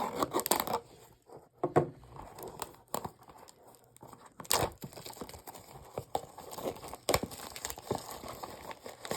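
Plastic shrink-wrap being torn and crinkled off a booster bundle box, with irregular sharp crackles and snaps throughout.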